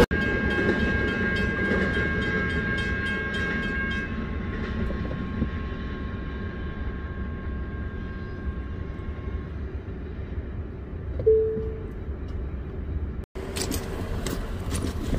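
A freight train rumbles through a downtown street-level railroad crossing, with steady ringing tones dying away over the first several seconds. A short horn note sounds about eleven seconds in, and near the end a car's tyres clack over the rails.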